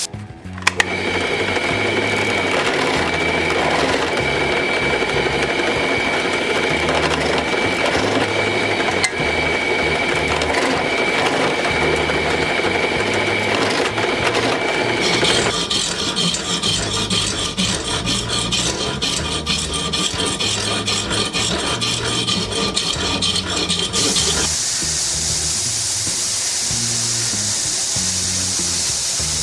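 Background music with a steady bass line over a steady abrasive tool noise, grinding or rasping on steel, with a faint high whine through its first half. The tool noise changes character about halfway through and stops several seconds before the end, leaving the music.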